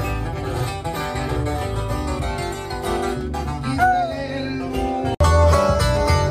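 Acoustic guitar music, strummed and picked. A little after five seconds in it breaks off for an instant and comes back louder.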